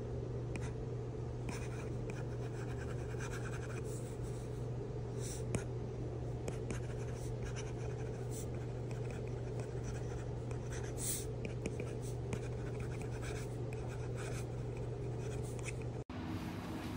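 An Apple Pencil fitted with a fine replacement tip tapping and scratching across a tablet's glass screen during handwriting, in light, irregular clicks and scrapes over a steady low hum.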